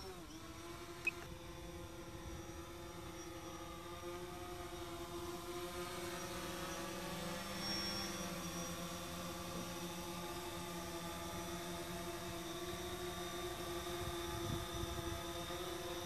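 Quadcopter drone's propellers whining steadily as it flies, a hum with several overtones that dips briefly in pitch at the start and grows slowly louder. One sharp click about a second in.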